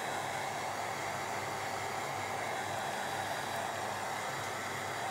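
Handheld hair dryer running steadily on a low heat setting, blowing air onto a damp, freshly glued paper page to dry it.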